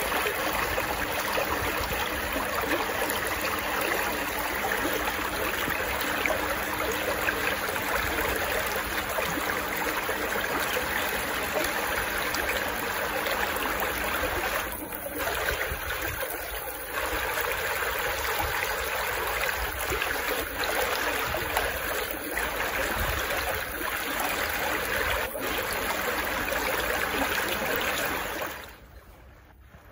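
Shallow stream running steadily, water rushing past a small concrete weir. The sound drops away sharply about a second before the end.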